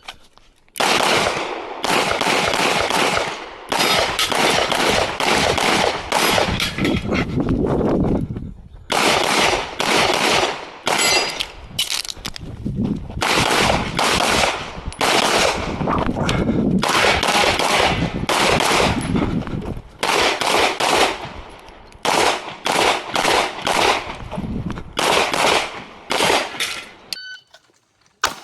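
Rapid pistol fire from an action pistol stage run with a red-dot-sighted Carry Optics handgun: fast strings of close, loud shots, several a second, broken by short pauses. The shooting stops about a second before the end.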